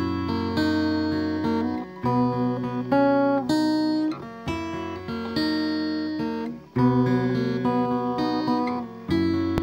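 Background acoustic guitar music: chords plucked and left to ring, with a new chord about every two seconds.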